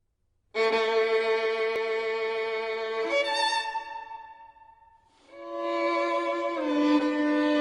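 A bowed string instrument playing slow, long held notes. The first note starts about half a second in, shifts about three seconds in and fades away. A new note swells in after five seconds and steps down in pitch.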